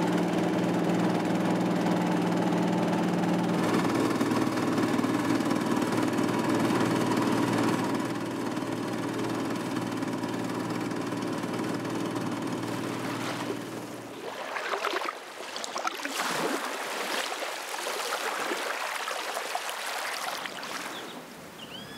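Small boat's engine running steadily as it crosses the lake. About two-thirds of the way through it gives way to small waves lapping and splashing at the sandy shore.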